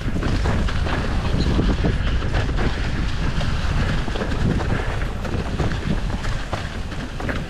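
Mountain bike riding down a dirt trail: tyre rumble over the ground and frequent knocks and rattles from the bike, with wind buffeting the microphone.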